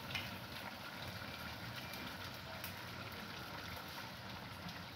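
Faint bubbling of a pot simmering on the stove: a low, steady hiss with light crackles.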